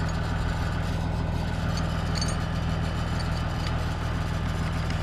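Tractor engine idling steadily, a low even drone.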